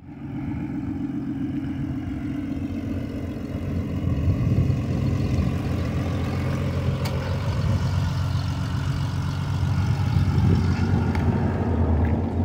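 Ford Taurus sedan's engine running as the car pulls slowly out of the garage bay and rolls past close by, getting louder about four seconds in.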